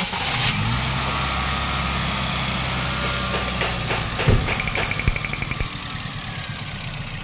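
Toyota Vios 2NZ-FE four-cylinder engine running at a rough idle just after being restarted: the idle drops and the engine stalls, the fault being diagnosed. A thump comes about four seconds in, and then a rapid, even ticking of about eight a second.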